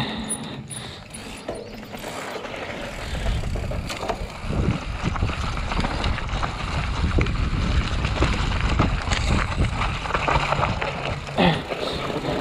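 Bicycle riding fast over a rough trail: a steady rush of wind and tyre noise with chain and frame rattle, getting louder about two seconds in.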